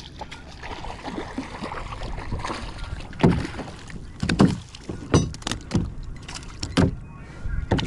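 A hooked trout being fought from a kayak: water and gear rustling, broken from about three seconds in by several sharp thumps roughly a second apart.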